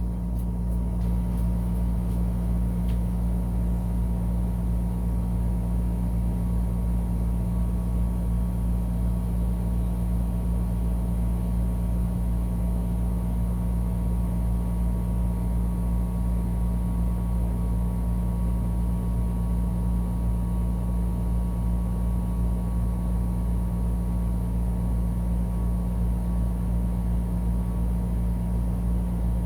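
Ruud RA13 central air conditioner's outdoor unit running steadily: the compressor's deep electrical hum with the condenser fan, even and unbroken, with a faint thin whine.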